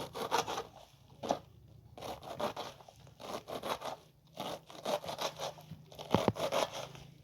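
Irregular crunching, scraping and rustling in short bursts over a faint steady low hum.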